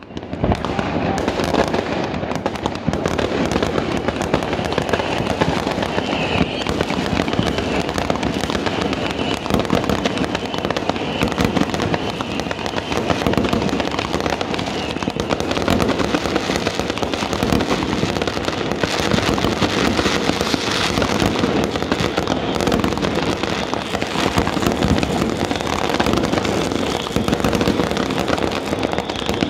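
Many fireworks going off at once in the surrounding neighbourhood: a dense, continuous crackle of bangs and pops with no pauses.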